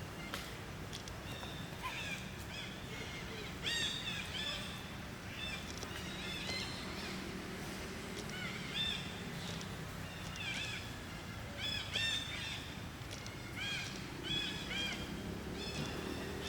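Animals chirping: many short, high, arched calls in quick clusters, over a steady low hum.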